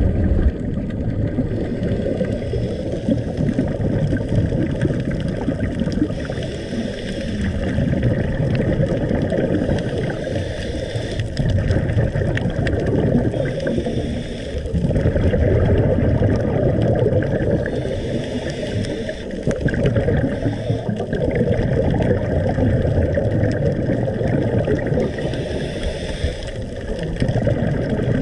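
Scuba diver breathing underwater, heard as a steady muffled rumble of water with a hissing rush of exhaust bubbles from the regulator about every four to five seconds.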